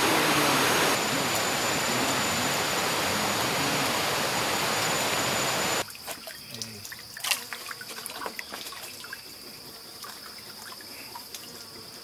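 Loud, steady rushing noise that cuts off abruptly about six seconds in. It gives way to a small rocky jungle stream trickling, with small splashes and plinks as a bottle is dipped into the water, over a steady high whine.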